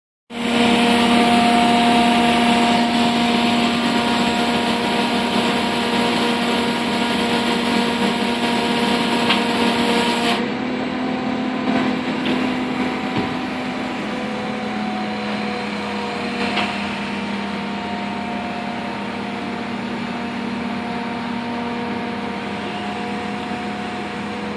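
Truck-mounted crane's engine running steadily at raised speed while the crane lifts a heavy trailer, a constant engine hum with a few steady tones. About ten seconds in, the hissy top end drops away and the note shifts slightly.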